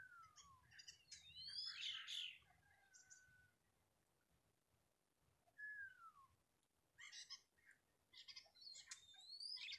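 Birdsong: a clear whistled note sliding downward, twice about six seconds apart, each followed by a burst of quick chirps and rising whistles.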